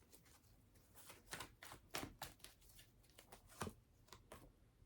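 Faint, scattered taps and rustles of tarot cards being handled.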